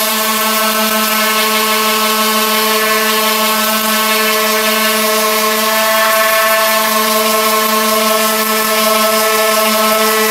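A small electric motor running at a steady, high, unchanging pitch.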